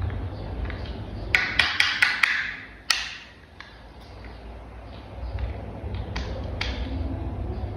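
Hard plastic toy parts clicking and snapping together by hand: a quick run of about five sharp clicks, another a moment later, and a few fainter clicks near the end, over a steady low hum.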